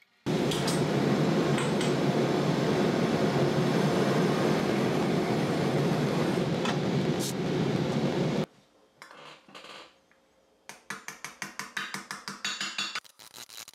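Handheld gas torch flame running steadily as it anneals a thin fine-silver cup to soften it, cutting off about eight seconds in. Near the end, quick light hammer strikes on the silver vessel over a steel stake, about four or five a second.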